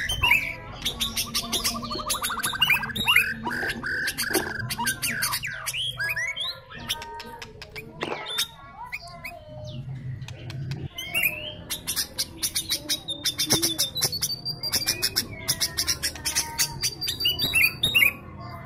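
Sooty-headed bulbul (kutilang) singing loudly, with fast rattling chatter and whistled notes that slide up and down. The song thins out for a few seconds in the middle.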